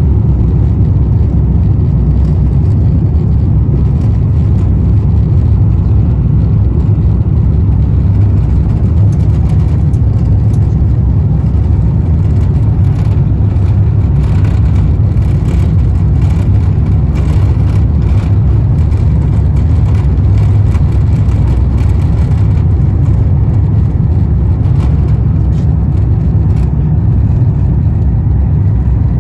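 Inside the cabin of an Airbus A350-1000 during takeoff: its Rolls-Royce Trent XWB engines at takeoff thrust, a loud, steady deep rumble, with faint ticks and rattles in the middle stretch.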